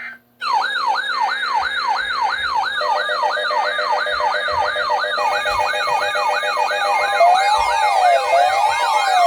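Electronic sirens start about half a second in, sounding a fast yelp of roughly three sweeps a second, with several layered at different pitches. Near the end a slower rising-and-falling siren tone joins them.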